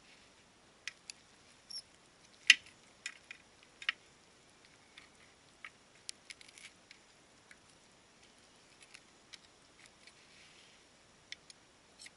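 Knife and fork clinking and scraping against a roasting pan and plate while a roast turkey is carved: scattered sharp clicks at irregular times, the loudest about two and a half seconds in.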